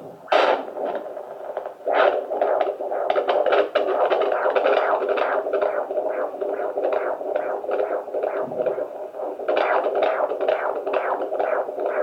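Fetal heartbeat at 28 weeks heard through a handheld Doppler: a fast, regular pulse of about two to three beats a second over steady hiss. It briefly drops out a little after eight seconds in.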